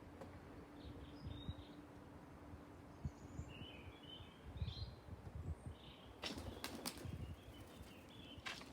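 Pigeon wings flapping in a quick burst of several sharp claps about six seconds in, over faint scattered chirps of small birds.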